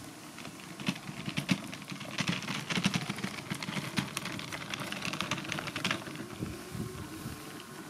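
Gravel and grit crunching under the Mammotion Luba 2 robot mower's wheels as it drives across a stony track, a dense irregular crackle that thins out near the end as the mower rolls back onto grass.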